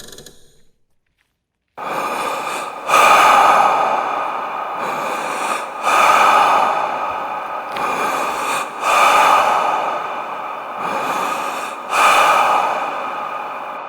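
Heavy breathing sound effect for horror: a series of loud, slow, noisy breaths that swell and ease off every one to three seconds, starting after a second of silence.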